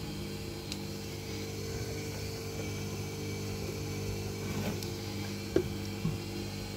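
Old Samsung front-loading washing machine's motor turning the drum with sneakers inside, a steady hum with a couple of knocks about five seconds in, as it runs up toward its first intermediate spin with the drum full of detergent foam.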